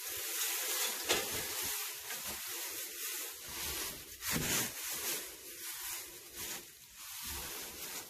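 Dry straw rustling and crackling as it is handled and spread as bedding, with a sharp rustle about a second in and a louder burst of rustling near the middle.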